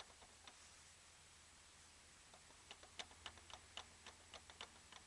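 Faint rapid clicking knocks, about five a second, starting about two and a half seconds in. A Subaru Legacy BH5's inner CV joint at the gearbox is being rocked, knocking from play in the worn joint, which wobbles hard.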